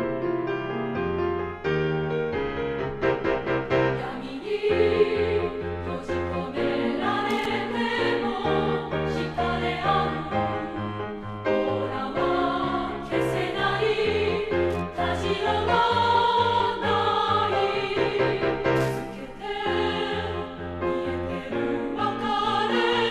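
Music: a women's chorus singing with instrumental accompaniment and a pulsing bass line.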